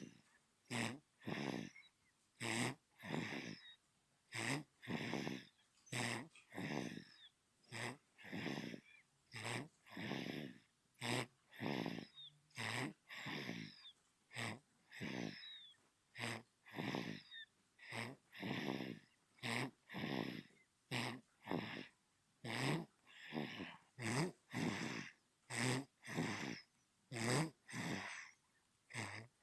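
Newborn baby snoring in its sleep. Short raspy breaths come about once a second, with near-silence between them.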